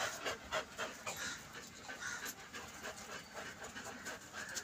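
A dog panting in quick, even breaths, about four or five a second.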